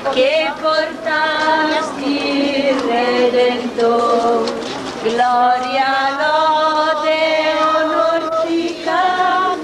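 High voices singing a slow processional hymn in unison, with long drawn-out notes.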